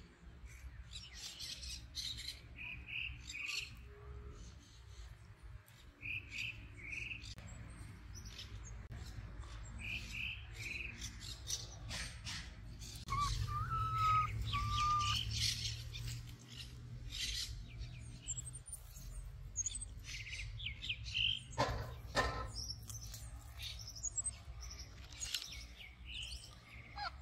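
Birds chirping in the trees, with short calls repeated in little groups of two or three throughout and a brief whistled note about halfway through. A low rumble sits underneath and grows louder from about halfway in.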